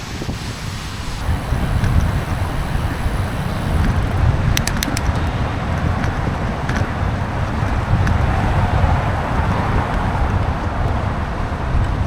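Road traffic and wet-road noise heard from a moving bicycle, with wind buffeting the microphone as a rough low rumble. A short cluster of sharp ticks comes about four and a half seconds in.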